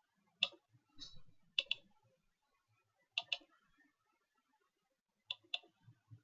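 Clicking at a computer, mostly in quick pairs about a fifth of a second apart, four times over a few seconds, with a softer rustle just after the first click.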